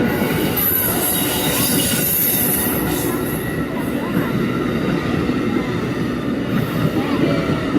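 Amtrak Palmetto passenger train rolling past, its cars' wheels squealing high over a steady rumble of wheels on rail. The squeal is strongest in the first few seconds.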